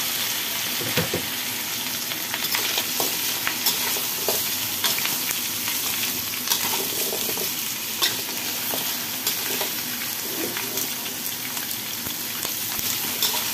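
Blanched pork trotter pieces sizzling in hot oil in a stainless steel wok, a steady hiss, with a metal spatula scraping and clicking against the pan now and then as they are stirred.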